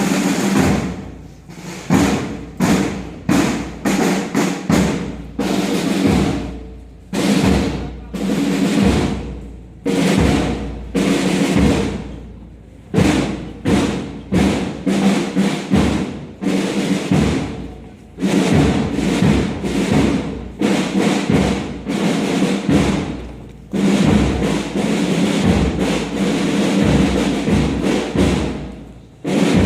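Music with drums: frequent, irregular percussive hits over steady sustained notes.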